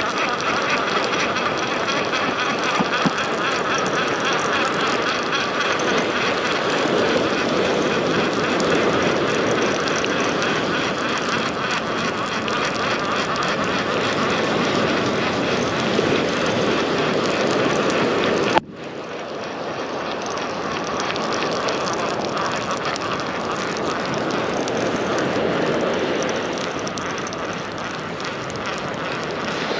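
Steady rushing noise of wind and surf at the shoreline. It cuts off abruptly about two-thirds of the way through and resumes a little quieter.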